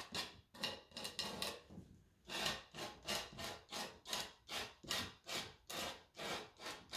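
Quick, scratchy strokes of a painting tool across a stretched canvas, laying on and working thick, wet acrylic paint, about three strokes a second with one longer stroke a little over two seconds in.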